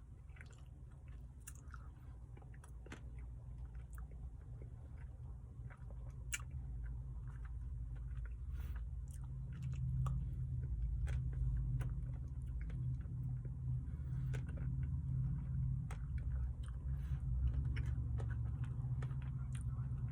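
A person chewing a mouthful of Blizzard ice cream with brownie pieces, close to the microphone. There are scattered small clicks and a low rumble that grows louder about halfway through.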